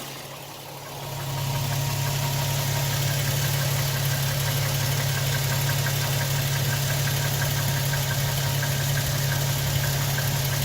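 Toyota 1GR-FE 4.0 L V6 engine running steadily with a regular light knocking tick, which the owner believes is piston slap. It grows louder about a second in, then holds steady.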